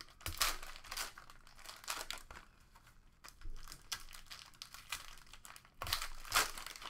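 Plastic wrappers of trading card packs crinkling as the packs are handled and opened, in irregular crackles with louder bursts about half a second in and near the end.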